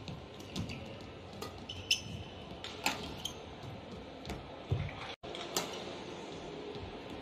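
Badminton rally: the shuttlecock is struck sharply by rackets every second or so, with a few brief shoe squeaks on the court floor, over a steady hall hum.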